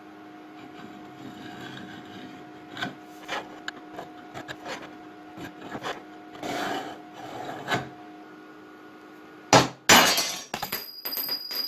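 Steady machine hum with scattered light clicks and knocks, broken off about nine and a half seconds in by two loud, sharp strikes close together, a heavy blow.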